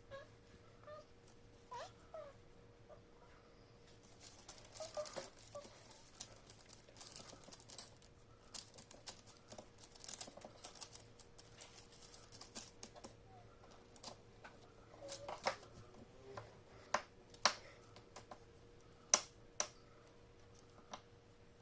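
Pencil or crayon work on paper: short scratchy strokes, with scattered sharp taps and clicks of the drawing tools, the loudest clicks in the second half. A faint steady hum lies underneath.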